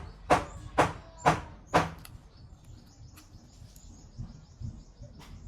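Four sharp knocks about half a second apart, followed by faint high chirping.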